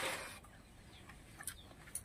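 A loud slurp fading in the first half second as the meat of a small snail is sucked out of its shell, then a couple of faint clicks.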